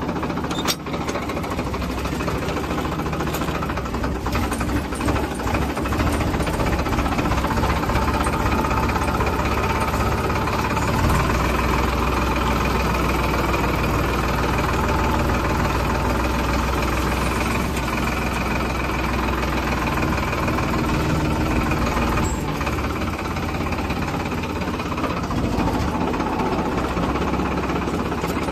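Farmtrac tractor's diesel engine running steadily, heard from the driver's seat, its low note growing a little stronger about eleven seconds in.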